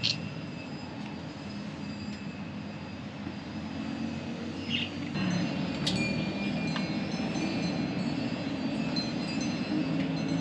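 Harley-Davidson Breakout 117's Milwaukee-Eight V-twin with a Vance & Hines slip-on exhaust running low and steady amid street traffic, with faint high ringing tones over it. It gets a little louder about five seconds in.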